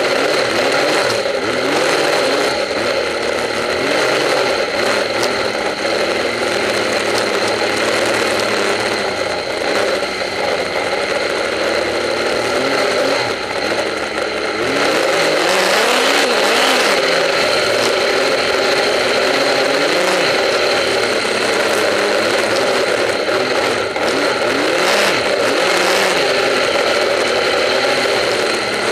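Snowmobile engine running under way, its pitch rising and falling again and again as the throttle opens and closes, over a steady high whine and scattered clattering, heard up close from a camera mounted on the sled's nose.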